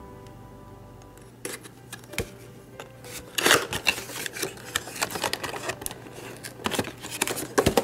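A cardboard miniatures booster pack being cut and pulled open, then the clear plastic insert inside being handled: a few sharp clicks, then from about three seconds in a run of scraping, crinkling plastic and cardboard rustle with many small clicks.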